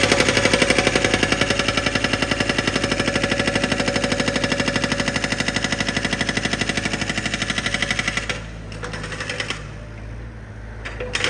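Construction drill's breaker hammering rapidly in a steady, even rhythm. It stops about eight seconds in, and a short burst of hammering comes near the end.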